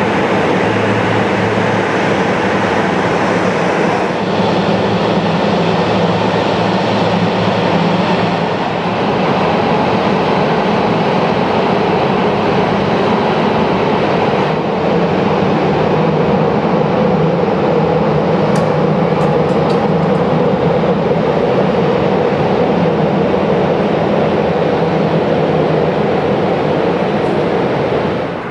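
Boeing 757-300 jet engines running at taxi power as the airliner taxies by: a loud, steady rumble with a low hum.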